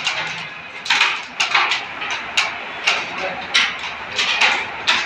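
Sharp clicks and clacks at irregular intervals, about ten in five seconds.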